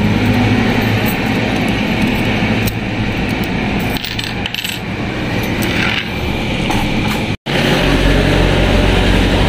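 Coins clinking as payment is counted out at a shop counter, over steady rain noise. The sound breaks off sharply about seven seconds in, and steady rain noise carries on after it.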